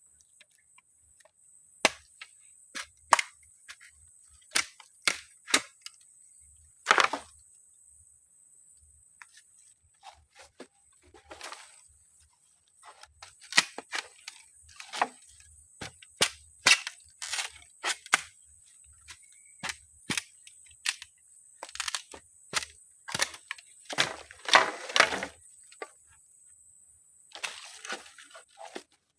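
A string of sharp, irregular knocks and taps, a few dozen in all, coming thicker and faster in the second half.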